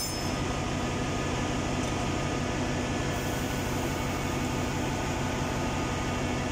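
Steady machinery hum with ventilation noise and a constant low tone, the running background of a ship's engine room.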